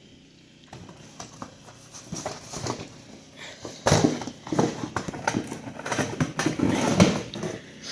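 Packaging being handled and unwrapped: dense crinkling, rustling and small clicks, fainter at first and growing louder and busier about four seconds in.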